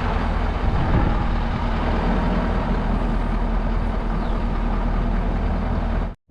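Truck engine running steadily, heard from a camera mounted on the front of the truck, with a low, even drone. It cuts off abruptly just before the end.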